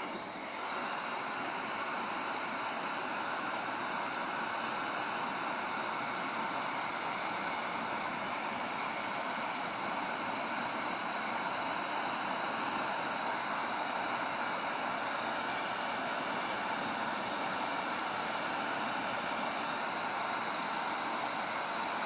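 Electric heat gun running with a steady rush of blown air, heating HDPE plastic and a filler stick for a plastic weld.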